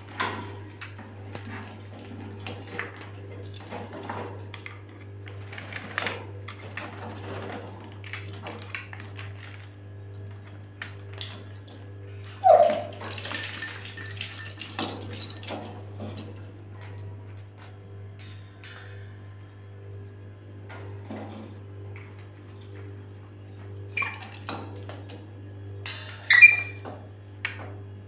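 A wet rainbow lorikeet moving about its wire cage: scattered clicks and clatters of beak and feet on the metal bars, perches and plastic dish, with a denser rattling, rustling stretch about halfway and two sharper clacks near the end, over a steady low hum.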